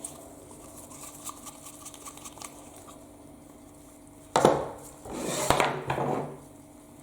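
Metal parts and tools being handled on a workbench: a few light clicks and taps, then a sudden loud metallic knock about four seconds in, followed by over a second of rough scraping.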